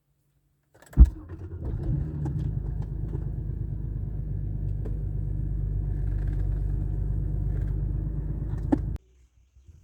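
BMW N52 straight-six engine: a sharp thump about a second in, then the engine idles steadily until the sound cuts off shortly before the end.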